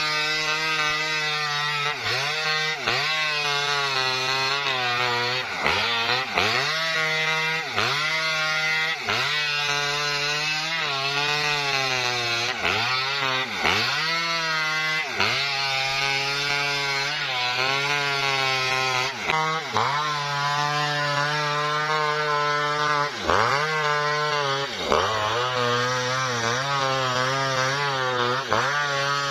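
Small Maestro two-stroke chainsaw ripping lengthwise through a coconut palm trunk under steady load. Its engine pitch repeatedly dips as the chain bites and picks back up, every second or two.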